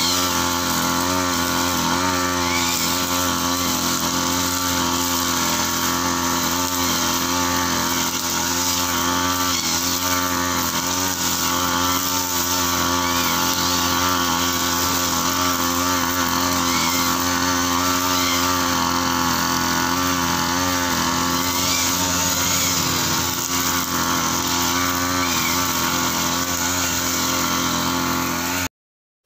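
Backpack brush cutter's petrol engine running steadily while its blade cuts grass. The sound cuts off abruptly near the end.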